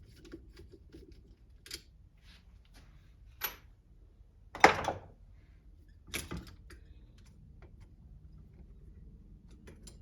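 Hand tools and small metal parts of an RC car clicking and clattering as it is taken apart, with four louder knocks, the loudest a little under five seconds in.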